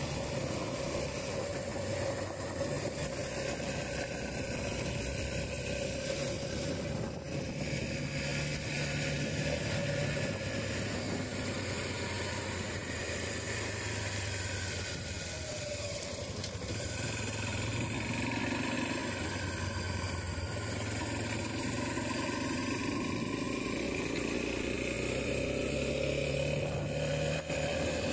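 Honda XR250 Tornado's single-cylinder four-stroke engine running as the motorcycle cruises along a dirt road, its pitch shifting a little now and then with throttle and speed.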